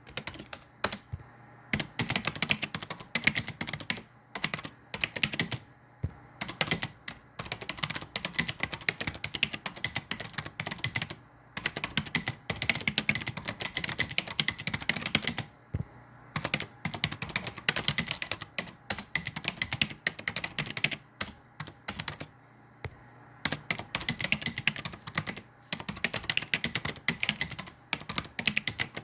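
Computer keyboard being typed on: fast runs of key clicks broken by short pauses.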